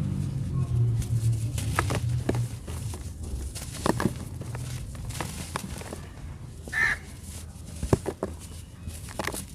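Chunks of red sand crumbling, with sharp crackles and crunches scattered throughout. A low engine hum fades out over the first couple of seconds, and a brief bird call comes about seven seconds in.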